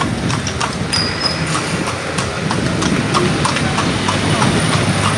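A horse's hooves clip-clopping on a paved street as it pulls a kalesa, a horse-drawn carriage, in an even rhythm of about three to four hoofbeats a second.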